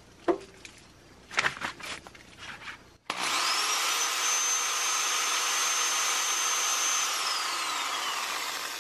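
A 600-watt corded DeWalt drill with a few handling clicks, then about three seconds in its motor spins up to a steady high whine. It runs for about four seconds and then winds down when the trigger is released. It is running as a test load on an off-grid pure sine wave inverter, and it runs smoothly.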